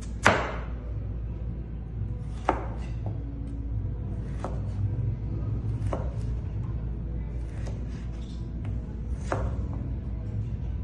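A chef's knife chopping through a firm vegetable onto a plastic cutting board: single sharp knocks, the loudest right at the start and the others spaced a second or two apart, over a steady low hum.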